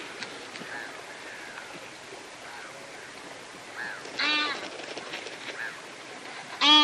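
Two loud, pitched animal calls, each about half a second long, one about four seconds in and another just at the end, over faint short high chirps and a steady outdoor hiss.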